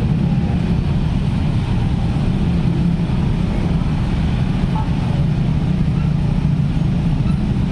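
Dense rush-hour road traffic, mostly motorcycles and scooters with some cars, crossing a railway level crossing. The engines run together in a loud, continuous mass without any single standout event.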